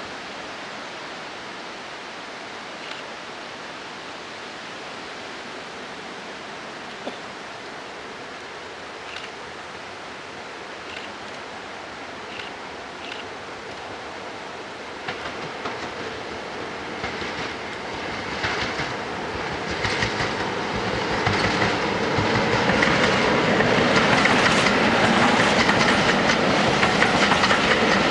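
Class 47 diesel locomotive and its coaches approaching and passing, faint at first and growing steadily louder through the second half, with wheels clicking over the rail joints as the train draws level.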